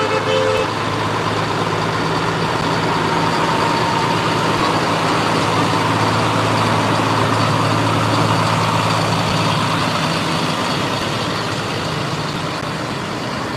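Diesel engines of large farm tractors running as the tractors drive past one after another, a steady low drone that eases off near the end. A short horn toot comes right at the start.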